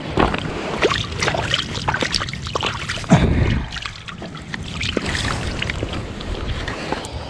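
Close rustling and clattering of gear being moved about, with one heavy thump about three seconds in.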